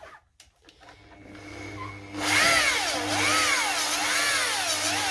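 Rotary polisher with a foam pad, running at about 1200 rpm against a plastic headlight lens with polishing paste. It spins up about a second in and gets louder about two seconds in as the pad works the lens, with its whine rising and falling roughly once a second.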